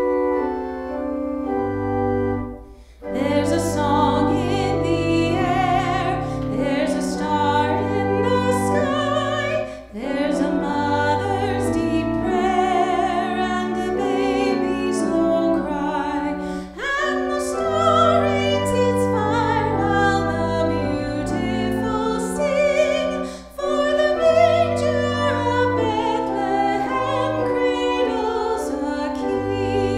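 Organ plays about three seconds of held chords over a low sustained bass note. A woman then sings a solo with vibrato, amplified through a microphone, over the organ accompaniment, with short breaths between phrases.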